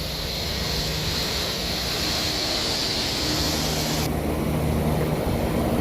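Large rooftop commercial HVAC unit running normally: a steady, pretty loud low mechanical hum, with a hissing rush over it that cuts off about four seconds in.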